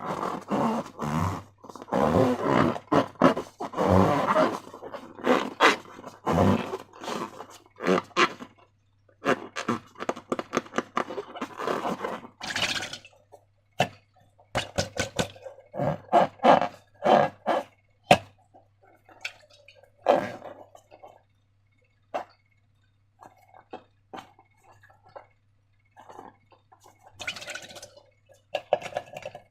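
Slime being squished and stretched by hand together with transparent balloons: irregular wet squelches, crackles and clicks, dense for the first dozen seconds and sparser after. A few short squeaks of rubber are heard around the middle, over a faint steady low hum.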